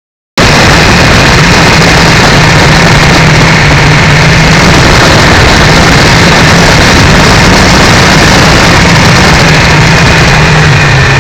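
Triumph 955i's three-cylinder engine running steadily, picked up very loud and distorted by a small camera mounted low on the motorcycle, under a thick wash of noise. It cuts in suddenly about half a second in.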